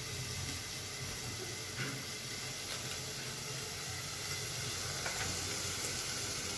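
Steady sizzling hiss of chopped onion, capsicum and carrot cooking in butter in a lidded pot, softening in their own juices with no water added. A faint click or two sounds during it.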